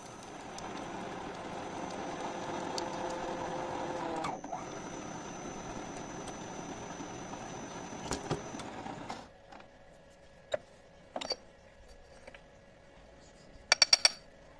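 Drill press running with a twist drill cutting into a steel plate, a steady machine sound that grows louder over the first few seconds and stops about nine seconds in. A few sharp metallic clicks follow, with a quick cluster near the end as metal chips are swept off the vise.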